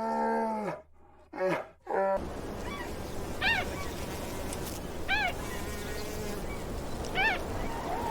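Animal calls: first a long call that rises and falls in pitch, followed by two short ones. About two seconds in the sound changes to a higher, short call repeated every one and a half to two seconds over a steady background hiss.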